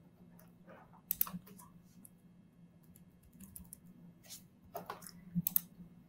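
A few scattered computer keyboard and mouse clicks, over a faint steady low hum.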